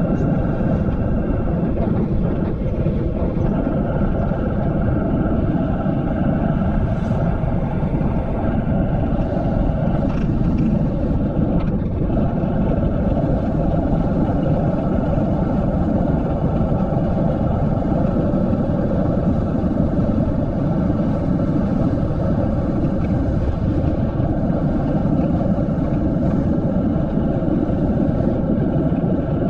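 Wind rushing over an action camera's microphone, mixed with the hum of mountain bike tyres on asphalt, during a descent at about 35 km/h. Steady, loud and even, with no change in pace.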